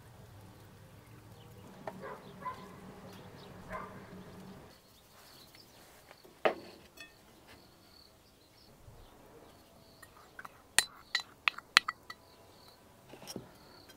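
A spoon clinking and scraping against glass bowls and a glass jug: a single clink about halfway through, then a quick run of clinks and scrapes as thick sauce is scraped out into a bowl. A low steady hum sounds during the first few seconds.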